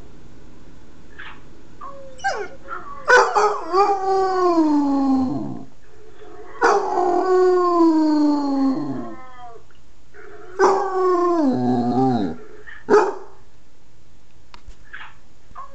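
9-month-old basset hound howling: three long howls, each sliding down in pitch, with a few short yelps before the first and a brief one near the end.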